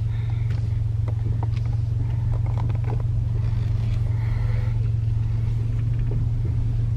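Steady low drone of a car driving slowly, heard inside the cabin, with a few light clicks and ticks over it.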